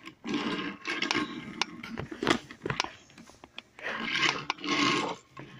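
Scraping and rubbing handling noise with a few sharp clicks, the loudest stretch about four seconds in.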